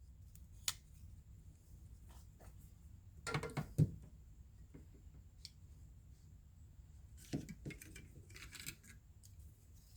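Scattered clicks and small metallic clinks of folding pocket knives being handled, set down and picked up, with the loudest cluster of knocks a little over three seconds in and another group near the end.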